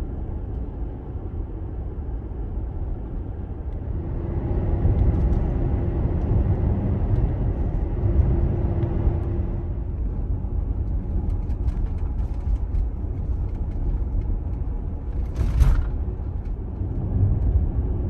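Car driving on the interstate: steady road and tyre rumble, with a steady hum for several seconds from about four seconds in and a brief, louder noise near the end.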